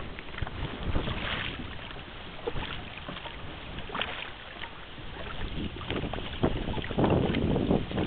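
Dragon boat paddles splashing and pulling through the water as the crew paddles, with wind on the microphone and a louder rush of noise near the end.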